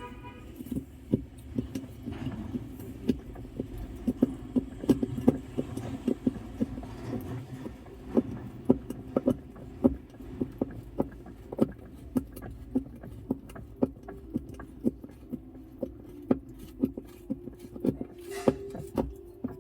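Regular metallic clicks, about two a second, as a hand tool tightens the centre bolt of an LG washing machine's pulsator clockwise, over a steady low hum.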